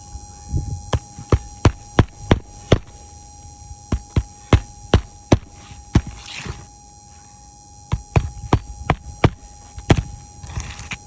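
Repeated sharp knocks, in runs of two or three a second, from tools working loose asphalt roof shingles in a repair attempt, with a short scraping rasp twice. A faint steady hum sits underneath.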